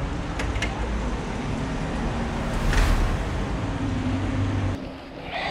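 Motor vehicle engine running nearby, with a steady low hum, swelling louder about three seconds in as it passes. The sound cuts off sharply near the end.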